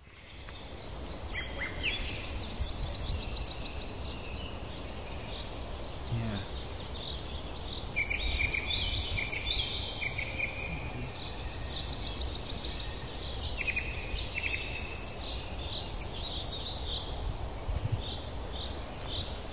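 Wild birdsong: fast trills of short high notes, chirps and whistled phrases coming and going, over a low steady rumble.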